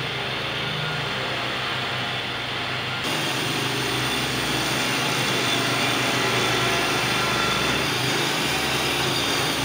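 Construction machinery engines running steadily, a compact ride-on dirt roller and a tracked skid steer working a dirt track. The sound gets fuller and brighter about three seconds in.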